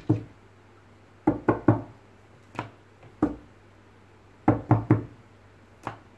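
Sharp knocks on a wooden desktop, about ten in irregular clusters of one to three, as a red lory and a person's hand play on the desk.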